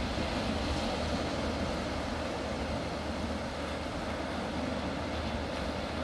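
Small waves breaking and washing over a flat beach, a steady rush of surf, with wind rumbling on the microphone.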